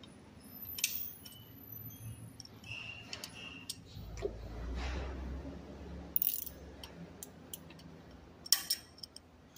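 Sharp metallic clicks and knocks from a bare Toyota 2AZ-FE four-cylinder engine block, as a connecting rod and piston are worked loose to push the piston out the bottom of its bore. There is a short squeak about three seconds in and a low rumble from about four to six seconds in.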